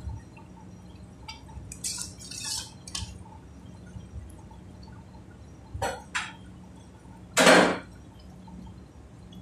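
A metal ladle stirring thick gravy in a kadai: several short scrapes and clinks against the pan and wet sounds of the sauce, the loudest about three quarters of the way in, over a steady low hum.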